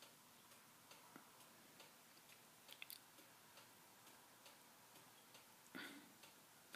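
Near silence: room tone with faint, regular ticking, about two ticks a second, and a soft rustle near the end.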